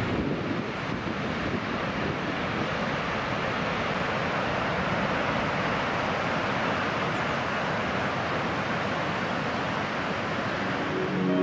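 Steady rush of river water pouring over a weir, with wind buffeting the microphone.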